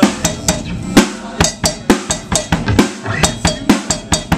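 A drum kit played live with sticks, giving a fast, uneven run of drum and cymbal hits.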